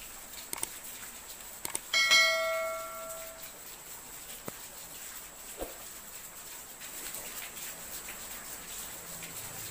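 Subscribe-button animation sound effects: a couple of quick mouse clicks, then a single bell ding about two seconds in that rings out for over a second. Underneath is a steady hiss, and a brief falling chirp comes later.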